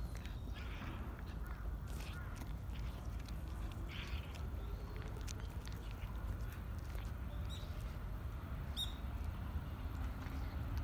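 A cat crunching dry kibble close by, in short irregular clicks, over a steady low rumble. A few brief bird chirps sound in the background in the second half.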